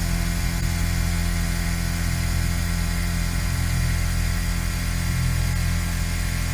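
Exechon XMini machine-tool robot surface-milling titanium: a steady machine hum with an even hiss over it, holding constant throughout.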